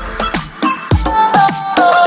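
Background music with a steady beat: a sustained melody over drums and deep bass.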